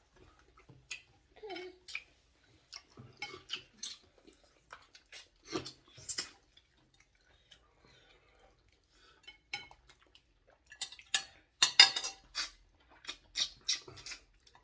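Eating sounds: spoons and cutlery clicking against bowls and plates, with chewing. The clicks come scattered, then a denser, louder run of clatter comes late on.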